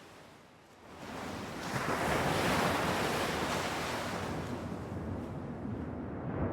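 Ocean waves: a surge of surf builds about a second in, crests, then slowly washes back.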